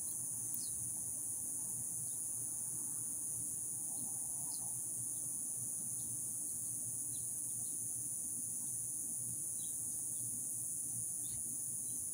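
A steady, high-pitched insect drone that does not change, with a few faint short ticks scattered through it.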